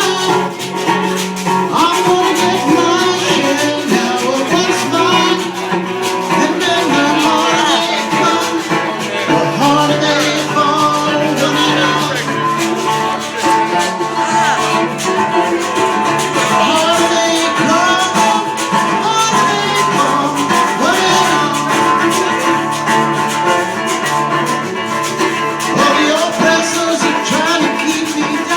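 Live band music: guitar playing with a shaker keeping the rhythm, in a reggae song.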